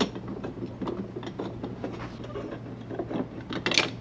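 Small, irregular metal clicks and knocks as square aluminium extrusion uprights and their loosely threaded bolts are handled and fitted onto a metal top plate, with a sharper clack near the end.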